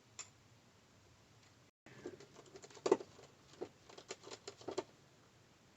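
Small, irregular clicks and scratches from a precision screwdriver and tiny parts being worked on inside an iPhone SE while a screw is fitted. There is one click near the start, then a run of about a dozen quick taps in the second half.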